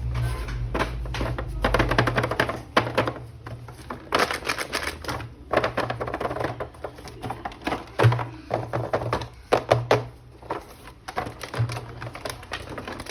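Plastic toy packaging and action-figure parts being handled and opened by hand: a dense, irregular run of clicks, taps and crinkles over a low hum.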